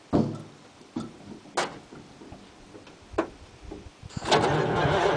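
Cab door of a Ford 9000 semi truck slammed shut, a few clicks and knocks from inside the cab, then about four seconds in the truck's diesel engine starts cranking over on the starter, a cold start on a freshly charged battery.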